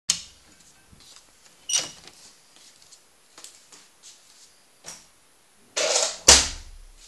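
Handling noise: scattered clicks and brief rustles. Near the end comes a short scrape, then a sharp knock with a dull thump, the loudest sound.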